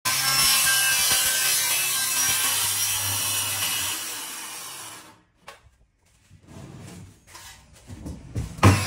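A power tool cutting: a dense, hissing grind over a steady motor hum, slowly dying away and stopping about five seconds in. Then a few scattered knocks and a loud thump near the end.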